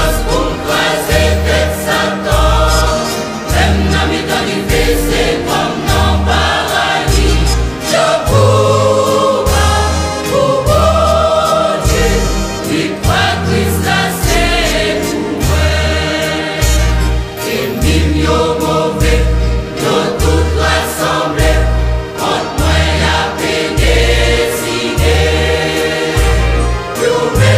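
Haitian Creole gospel song sung by a choir over a steady bass beat, a low note about once a second.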